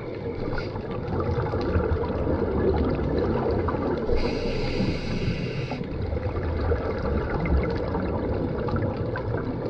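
Underwater sound through a GoPro's housing: a scuba diver's regulator breathing, with a low bubbly rumble on the exhales and a short hiss on one inhale about four seconds in. Faint scattered clicks run underneath.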